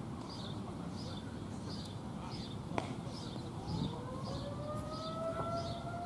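ASC Quadren Q-3200 outdoor warning siren starting up about halfway through, several tones together rising slowly in pitch as it begins its test signal. A rhythmic high chirping goes on in the background.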